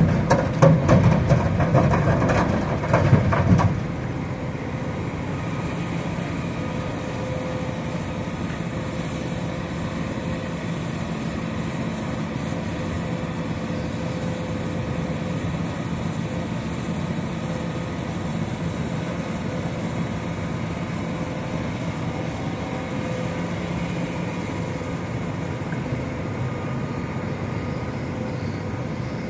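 Heavy diesel machinery of an excavator and dump truck at work: a louder stretch of clatter and knocks over the first few seconds, then a steady engine drone with a faint held whine.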